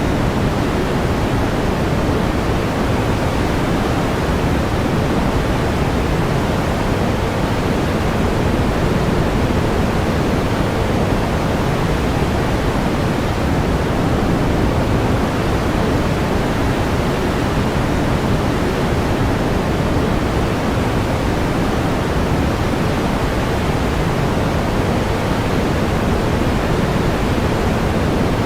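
Steady pink noise: an even, unchanging hiss, heavier in the low end than white noise, with no events or changes.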